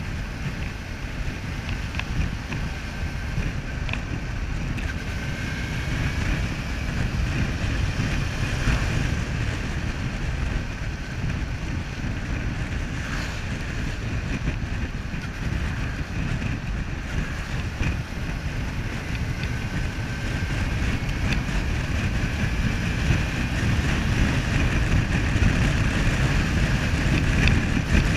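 Wind rushing and buffeting over the microphone of a Suzuki V-Strom 650 motorcycle under way, with its V-twin engine running underneath and a faint whine that slowly drifts in pitch. It grows gradually louder toward the end.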